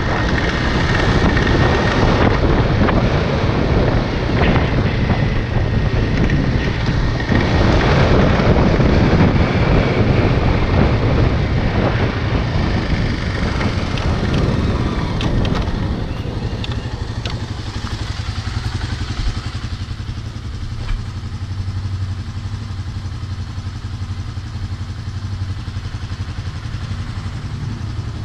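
Motorcycle engine running under way, with wind noise on the microphone. About two-thirds of the way in it drops to a quieter, steady idle.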